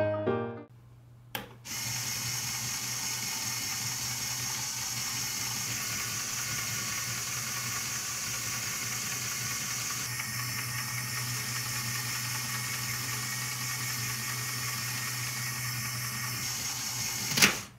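Lego Technic electric motor driving a train of plastic gears and crankshafts, a steady whirr with a low hum. There is a small click just after the start and a louder sharp click near the end.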